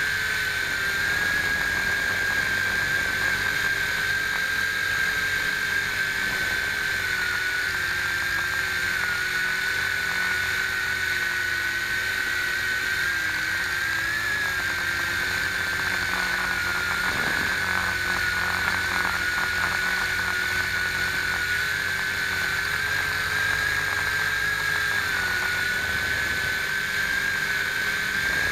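Electric motors and propellers of a WLtoys V262 quadcopter whining steadily as it hovers, heard from the camera on board; the pitch dips and rises slightly now and then.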